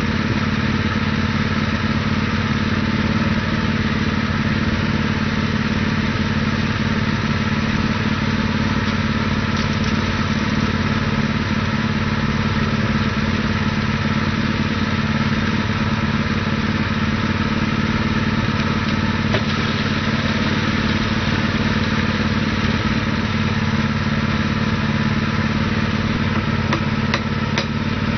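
Predator 212cc single-cylinder four-stroke engine powering a cable tool drill rig, idling steadily.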